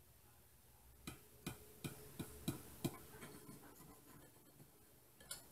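Kitchen knife clicking against a glass baking dish while cutting cornbread: about six light clicks, roughly three a second, starting a second in, then softer ones and one last click near the end.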